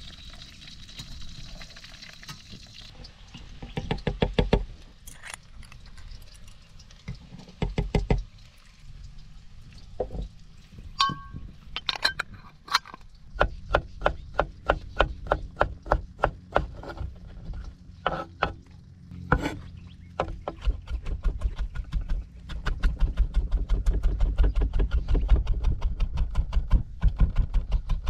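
Kitchen knife chopping capers and gherkins on a wooden chopping board: quick, regular knocks of the blade on the wood, several strokes a second. A couple of short runs come in the first third, then steady chopping from about halfway, denser and louder near the end.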